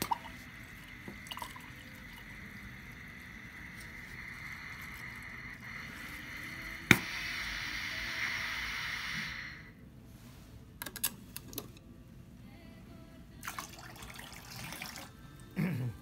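Hibar 4F2C filling machine shooting a stream of water from a small nozzle into a glass beaker: a steady hiss that grows louder after a sharp click about seven seconds in, then stops abruptly near ten seconds. A few clicks and a knock follow near the end as the glass beaker is handled.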